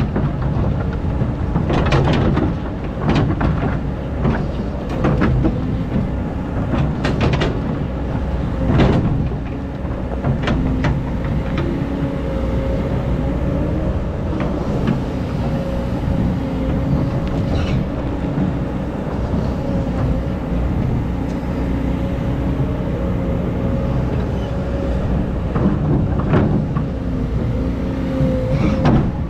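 Excavator engine running steadily under load, with a steady whine over it and sharp clanks and scrapes from the bucket digging sand, most of them in the first ten seconds and again near the end.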